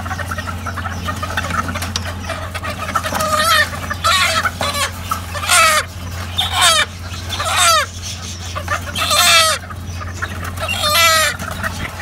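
Chickens clucking: short calls that fall in pitch, repeated every second or so, most of them from about three seconds in, over a steady low hum.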